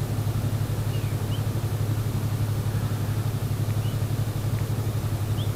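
Yamaha R3's parallel-twin engine idling steadily while the motorcycle stands still, a low even hum with a fast, regular pulse.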